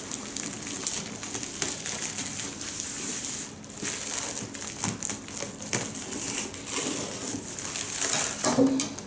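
Plastic bubble wrap crinkling and rustling as it is cut open with scissors and pulled off a cardboard box, with many small crackles and snaps throughout.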